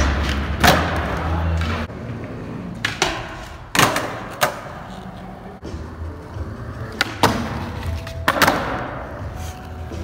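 Skateboard wheels rolling on a concrete floor, with several sharp clacks of the board hitting the ground from pops and landings, the loudest about a second in and near four seconds in. Each clack echoes briefly in a large hall.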